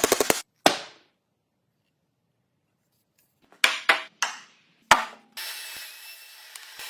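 Sharp knocks, one and then four close together after a pause, each with a short ringing decay, followed by a steady scratchy rasping noise.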